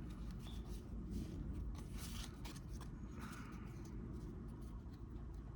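Faint handling noise from Pokémon trading cards being sorted by hand: scattered light clicks and card-on-card scrapes, with two short rustles about two and three seconds in.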